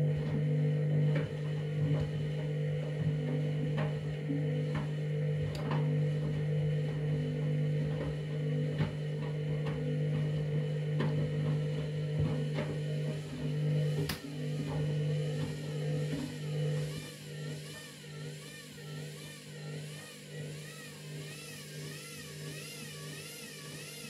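Front-loading washing machine running with a wet bath mat in the drum: a steady motor hum with light knocks every second or so as the drum turns. About two-thirds of the way through the hum begins to pulse and grows quieter, and a faint warbling whine comes in.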